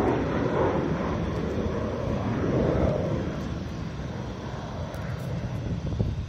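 Jet noise of the Frecce Tricolori's Aermacchi MB-339 aerobatic jets flying past, a loud rumble that swells once more and then fades away.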